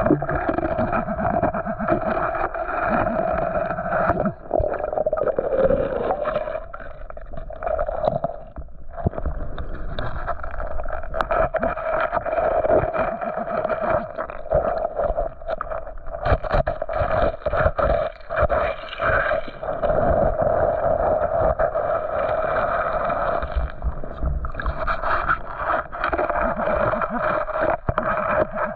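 Water sloshing and gurgling around metal-detecting gear worked through a creek bed, with scraping and knocks and a steady hum running under it.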